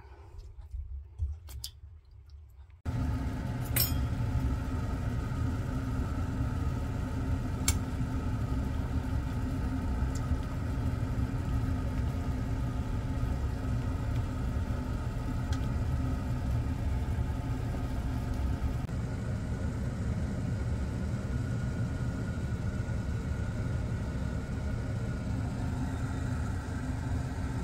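Faint rustling and a few clicks for about three seconds. Then a sudden switch to a steady low rumble with a hum from the stovetop, where a pot of corn cobs is at a rolling boil.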